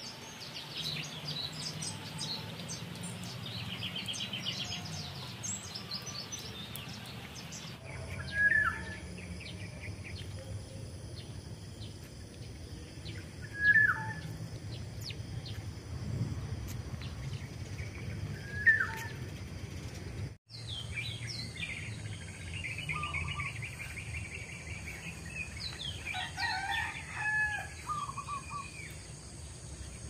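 Morning birdsong: many small birds chirping and trilling, then three loud short calls about five seconds apart, then varied warbling song, over a steady high insect drone.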